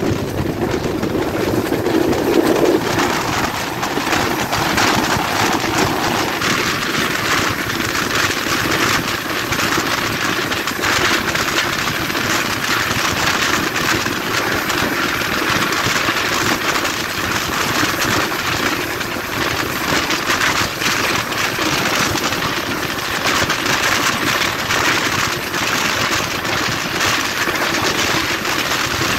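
Bangladesh Railway intercity passenger train running fast, heard from inside a coach by an open window: a steady rumble of wheels on the rails with many quick clicks and rattles.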